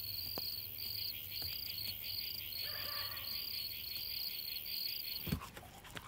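Crickets chirping in short high trills repeating about every half second. The chirping cuts off suddenly about five seconds in.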